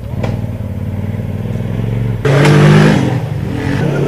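Polaris RZR side-by-side's engine running, then accelerating louder about two seconds in with a sudden rush of noise.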